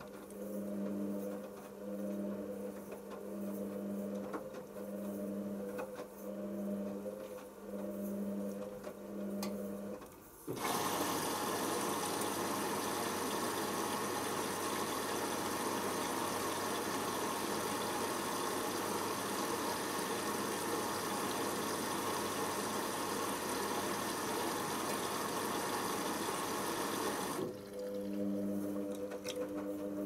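Hoover Optima OPH714D washing machine in its pre-wash: the drum motor turns a load of towels with a humming pulse about once a second. About ten seconds in, water rushes in steadily for some seventeen seconds and then cuts off, and the pulsing drum motor is heard again.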